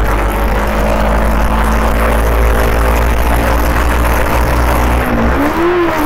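Motorcycle engine running steadily while riding at road speed, heard from the bike with heavy wind rumble on the microphone. Near the end the engine pitch briefly rises and falls again.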